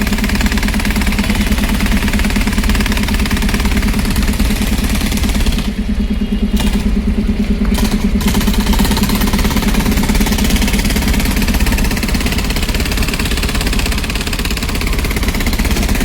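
An engine running steadily at low speed close by, with a rapid, even pulse and a low hum.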